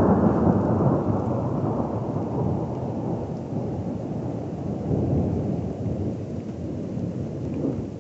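Rolling thunder rumbling deep and low, slowly dying away, with a brief swell partway through.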